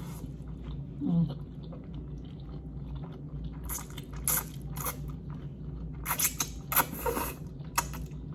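Close-up chewing of Samyang instant noodles: wet smacking and clicking mouth sounds that come thicker from about four seconds in. A short low hum comes from the eater about a second in.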